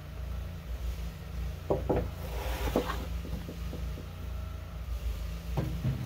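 Freshly sawn pine 2x4 boards knocking together as they are handled and stacked: a few wooden clunks about two seconds in and again near the end. An engine idles with a steady low hum underneath.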